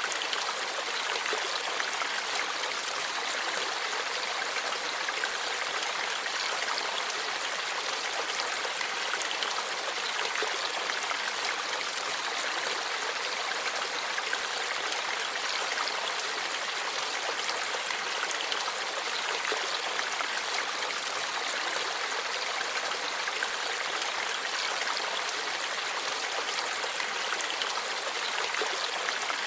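Forest stream flowing over rocks, a steady babbling and rushing of water with no change in level.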